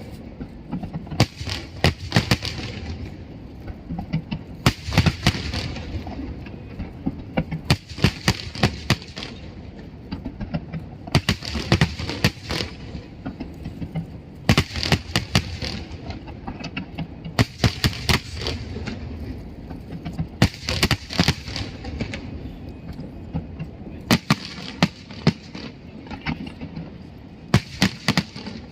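Fireworks display: clusters of sharp bangs and crackling shell bursts, a volley about every three seconds, over a steady background rumble.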